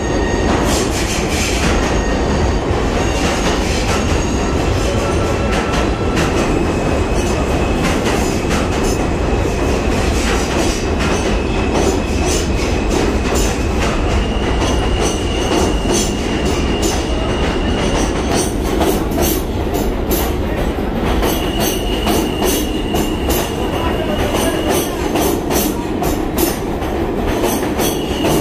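R160B subway train pulling out of the station and running past at rising speed: a steady rumble of the cars with rapid clicks of wheels over rail joints, and high wheel squeal that comes and goes.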